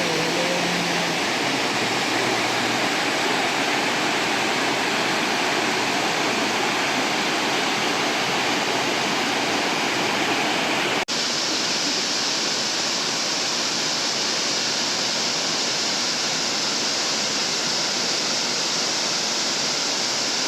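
Steady rush of water from a small waterfall. About eleven seconds in it breaks off for an instant and comes back with more hiss.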